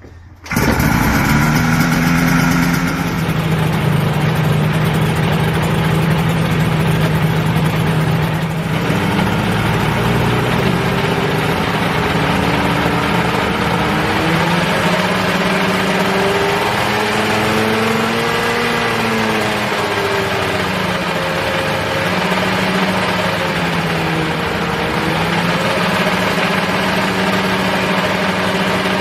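Ultralight experimental helicopter's engine starting for its first run-up: it catches suddenly about half a second in and then runs steadily, its speed rising and falling briefly a little past the middle.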